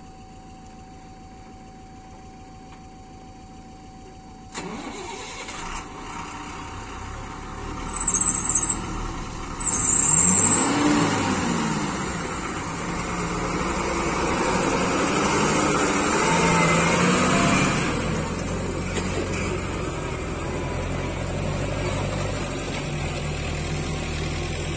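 Tata tipper truck's diesel engine starting up, with two brief hissing bursts, then revving up and down and running steadily as the loaded truck pulls away.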